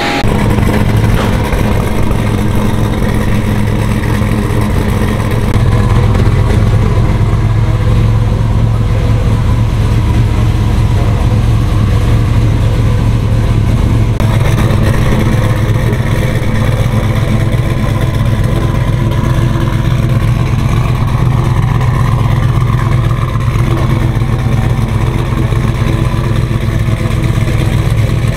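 Pickup truck engine running steadily with a loud, deep hum, getting a little louder about five and a half seconds in.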